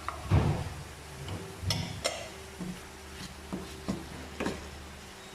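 Scattered light knocks and clinks of a cooking utensil against a pan, about half a dozen spread irregularly, over a faint steady low hum.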